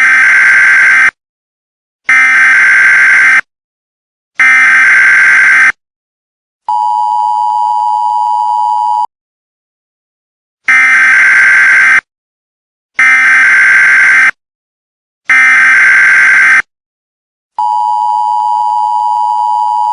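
Emergency Alert System tones. Three harsh, buzzy bursts of the digital SAME header are followed by the steady two-tone attention signal for about two seconds, and the whole sequence repeats about halfway through.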